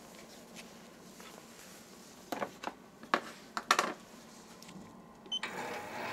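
A few sharp clicks and knocks, then a short beep, and a Sieg SC4 mini lathe starting up about five seconds in, its motor and four-jaw chuck spinning up to a steady run.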